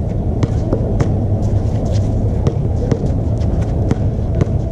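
A steady low outdoor rumble runs throughout, with scattered short, sharp taps and scuffs of players' shoes and a basketball on a hard outdoor court.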